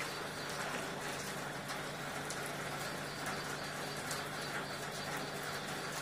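Steady rain falling, with a constant hiss and many small drops pattering and dripping.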